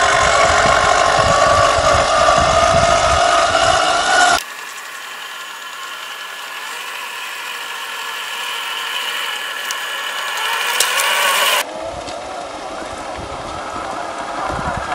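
Traxxas TRX-4 RC crawler's electric motor and gearbox whining steadily as it drives over dirt. About four seconds in the sound drops abruptly to a fainter, higher whine that slowly grows louder, then turns rougher again near the end.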